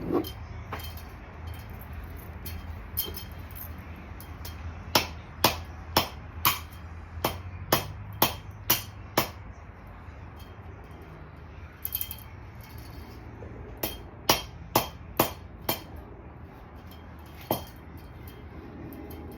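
Sharp metallic knocks of a tool striking metal: a run of about nine at roughly two a second, a pause, then a run of about five, with a few single knocks between, over a steady low hum.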